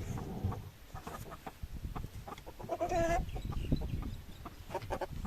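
Chickens clucking in short notes, with one longer, louder call about three seconds in.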